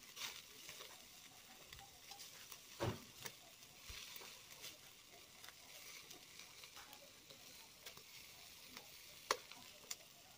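Burning charcoal under a metal grill grate crackling and hissing faintly, with scattered sharp pops, the loudest about three seconds in and another near the end.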